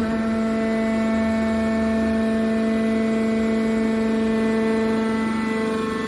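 Hydraulic power unit of a scrap-metal baler running: its electric motor and hydraulic pump give a steady, even hum.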